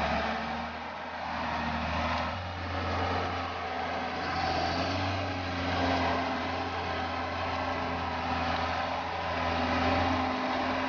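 Diesel engine of a Rottne H20 forestry harvester running under working load, with its pitch and level shifting a few times.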